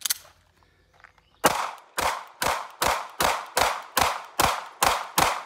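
A Sig P365 pistol firing ten quick shots in a steady string, about two and a half a second, starting about a second and a half in; a single sharp click comes just before.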